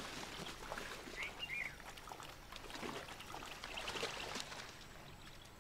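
Wet sloshing and trickling of mud and water as an Indian rhinoceros shifts in its mud wallow, with a brief high chirp about a second and a half in.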